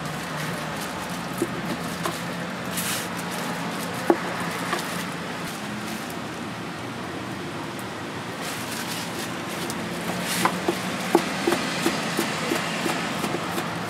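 Kitchen knife chopping on a cutting board in scattered sharp knocks, which quicken into a steady run of chops about ten seconds in, over a constant low hum.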